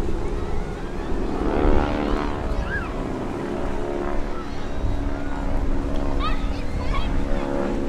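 Steady drone of the SNJ/T-6 Texans' nine-cylinder radial engines as the warbirds pass, with crowd voices on the beach.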